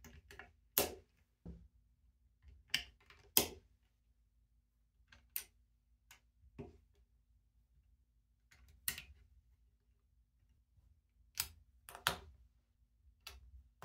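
Plastic LEGO bricks clicking and snapping as they are pressed onto a model and handled, about a dozen short, sharp clicks at irregular intervals.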